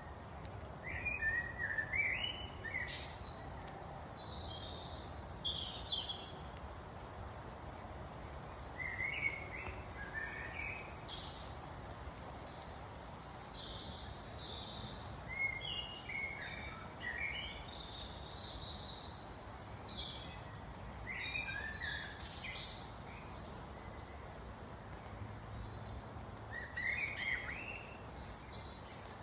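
Several woodland songbirds singing and calling, short chirping and warbling phrases coming every second or two, over a steady low rushing background.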